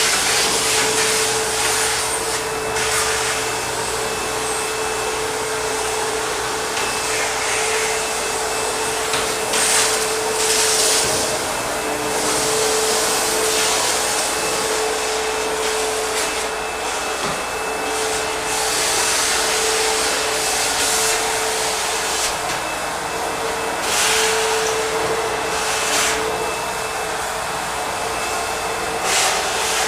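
ProTeam backpack vacuum running steadily with a constant motor whine, the rush of air swelling several times as the wand works over surfaces.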